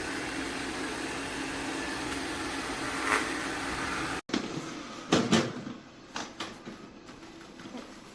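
Steady motor hum and whirr of a robot vacuum-mop running. About four seconds in the sound cuts off suddenly, and a quieter stretch with a few knocks and bumps follows.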